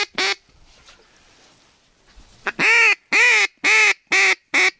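Hand-blown duck call sounding a series of quacks: one short quack at the start, then, after a pause, five loud, evenly spaced quacks about half a second apart, calling passing ducks in to the decoys.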